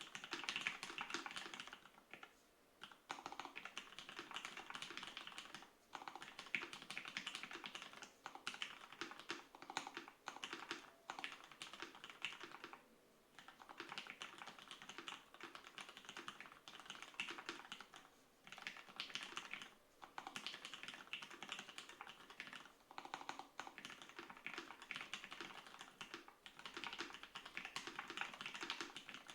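Typing on an EO-87 mechanical keyboard with lubed vintage Cherry MX Black linear switches in a 5 mm acrylic plate: fast runs of key strokes broken by brief pauses every few seconds.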